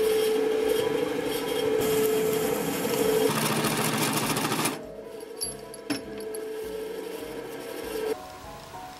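Drill press running with a steady hum while its bit cuts into a solid metal bar, with a grinding, scraping cutting noise. About five seconds in the cutting noise drops away, leaving the spindle running with a couple of light clicks, and the sound stops abruptly near the end.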